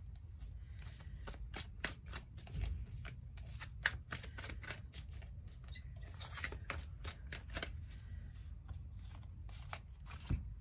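Tarot deck being shuffled by hand, a long irregular run of quick card clicks and flicks.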